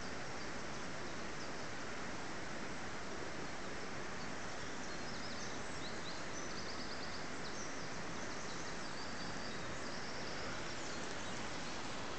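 Steady outdoor background hiss, with faint high chirping calls in the distance from about five to eleven seconds in.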